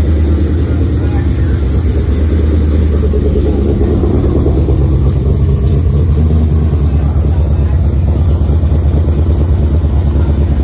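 Freshly built Ford Coyote 5.0 V8 running on its first start through a headers-back JBA exhaust, idling steadily.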